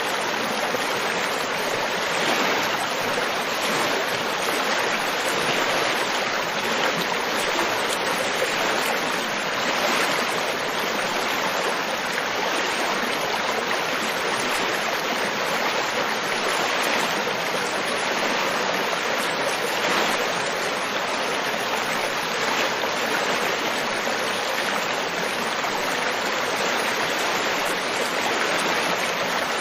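River water flowing steadily, a continuous rushing and babbling of a stream over rocks.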